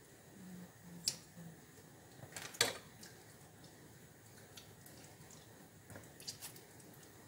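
Kitchen scissors snipping a small raw chicken in a plastic bowl: a few sharp clicks, the loudest about two and a half seconds in. Later, softer handling of the raw chicken by hand with a few light knocks.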